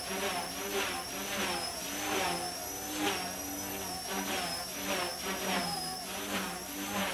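Mini CP micro collective-pitch RC helicopter, converted to brushless main and tail motors, flying: a high electric motor whine over a rotor buzz, its pitch wavering up and down as it hovers and moves about.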